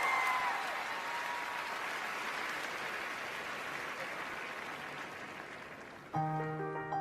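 Audience applause fading away over about six seconds, then a piano starting to play notes near the end.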